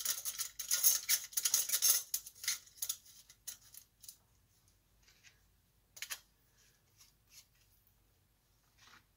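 Brass lamp fitter and its retaining nut being turned down by hand on the socket's threads: a quick run of light metallic scraping and clicking for about three seconds, then a few scattered clicks.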